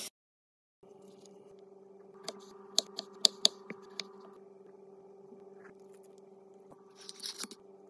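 Kitchen knife cutting pickle slices on a wooden cutting board: about seven sharp taps of the blade over a second and a half, over a steady low hum. A brief soft rustle near the end.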